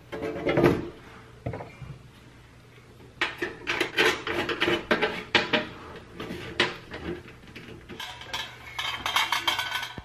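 Metallic clicks, clinks and knocks of a Phillips screwdriver driving screws into the sheet-metal housing of a Dyna-Glo kerosene heater as the housing is handled. One knock comes about half a second in, then a quieter moment, then an irregular run of clicks from about three seconds in.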